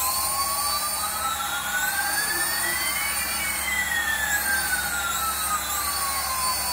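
Synthetic jet-like whoosh from the added soundtrack: a steady hiss with two sweeping tones, one rising slowly and one falling, crossing about halfway through, and a high swish that swells and fades every second or two.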